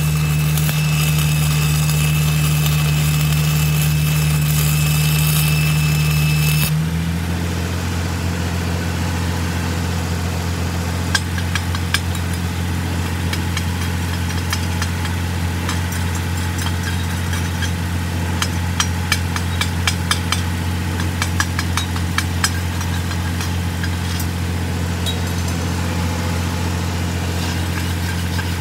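Stick-welding arc crackling and hissing for about seven seconds over the steady hum of a Jeep 4.0-litre inline-six engine running to drive a second alternator that powers the welder; when the arc breaks off, the engine hum drops in pitch. Then a chipping hammer knocks slag off the weld beads in quick clusters of sharp metallic taps, and near the end a wire brush scrubs the steel.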